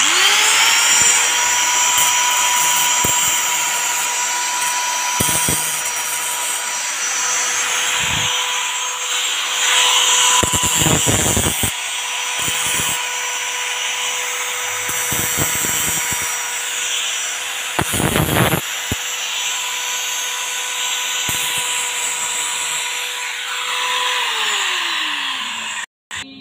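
Handheld electric angle grinder running free: it spins up at the start, holds a steady high whine, and winds down near the end. Two louder, rough rasping patches break in partway through.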